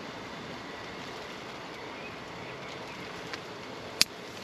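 Steady hiss of outdoor background noise with a sharp crack about four seconds in and a fainter one just before it.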